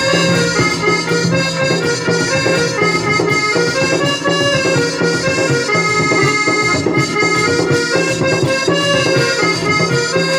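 Instrumental Odia folk-theatre music: a reed instrument plays a melody of held notes over a steady accompaniment, with no singing.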